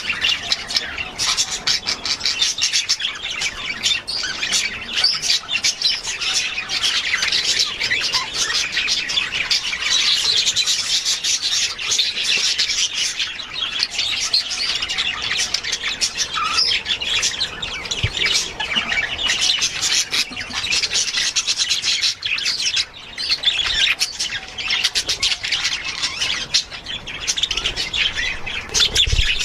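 A flock of budgerigars chattering continuously, a dense mix of warbling, chirps and squawks.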